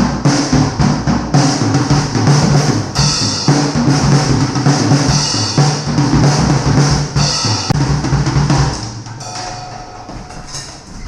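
Acoustic drum kit played hard with sticks: a dense run of snare, bass drum and cymbal hits. About nine seconds in it drops to a few last hits as the cymbals die away.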